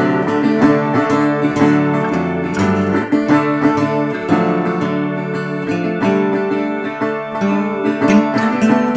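Background music: acoustic guitar picking and strumming a run of quick notes.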